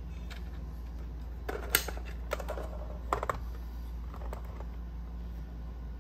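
Light clicks and clacks of a scale-model Range Rover Sport toy car being handled: its bonnet shut and the model set down and moved on a hard table. They come in small clusters, with the sharpest click about a second and a half in, over a steady low hum.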